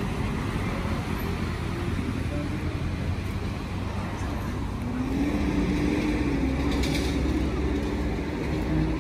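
City street traffic: passing cars with a steady low rumble, joined about halfway by a vehicle's engine hum that holds.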